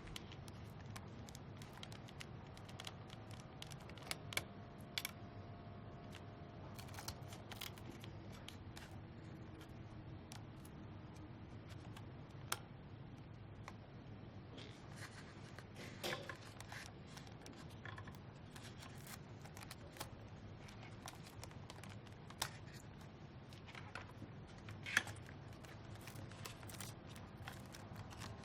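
Faint handling sounds of cable plugs being pulled from the connectors of a ventilator's control board: scattered small clicks and scrapes, with a few sharper clicks, the loudest near the end.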